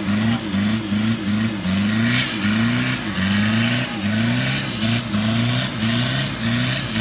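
Toyota Hilux 3-litre turbo-diesel engine revving hard while its tyres spin in a smoky burnout, the revs rising and dropping over and over, about twice a second, over a rushing hiss.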